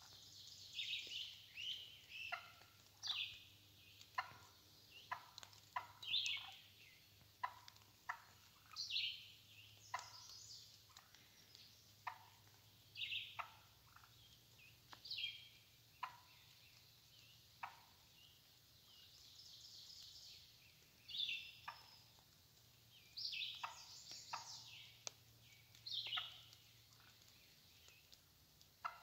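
Wild hen turkey calling: many short, sharp notes, some single and some in quick runs of several, repeated throughout.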